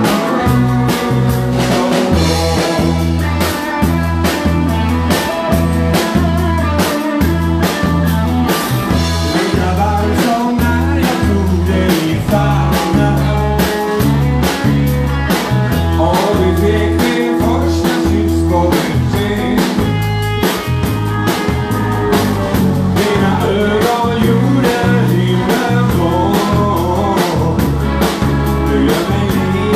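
Live band playing with a steady beat: electronic keyboard and drum kit, with a singing voice over them.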